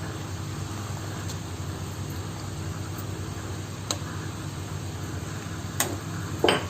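Steady hum of a kitchen fan or stove, with a few sharp clinks of a spoon against the pan and a short scrape near the end.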